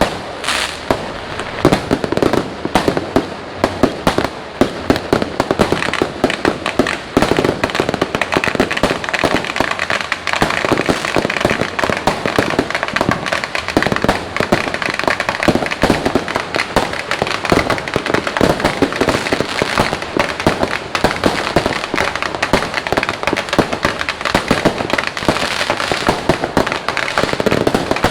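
Fireworks and firecrackers going off without a break: a dense, continuous run of bangs, pops and crackling.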